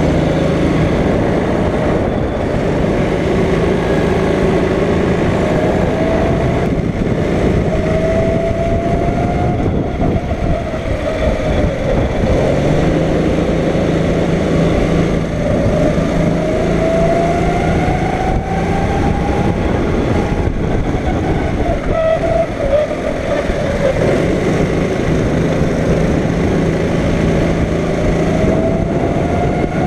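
Go-kart engine under load, its pitch climbing steadily for several seconds and then dropping back, about three times, as the kart accelerates and then slows for corners.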